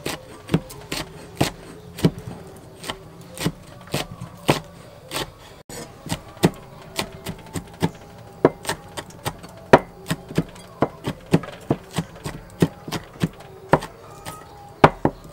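Cleaver chopping red chilies on a thick round wooden chopping block: a steady run of sharp knocks, about two a second.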